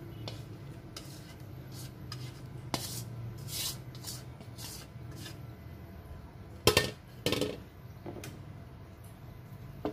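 Spatula scraping fried chilies and tomatoes out of a metal wok into an earthenware dish, with scattered scrapes and clinks. Two loud clanks of cookware come about two-thirds of the way in, and another near the end.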